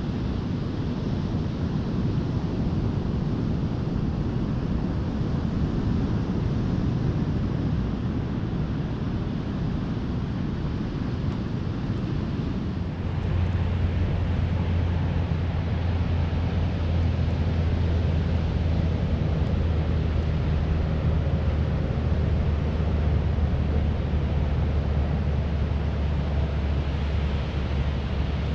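Wind buffeting the microphone of a camera on a moving bike: a steady low rumble that grows heavier about halfway through.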